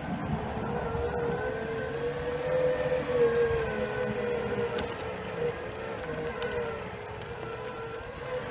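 Electric drive motors of a PathWay ES6 off-road self-balancing personal transporter whining steadily under load on a steep paved climb. The pitch rises and falls a little with speed, over a low rumble of the tyres on the asphalt.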